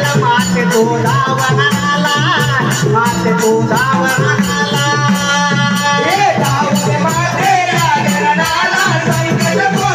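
Konkan jakdi folk music: a singing voice over a melody, with drums and jingling percussion keeping a steady, fast beat.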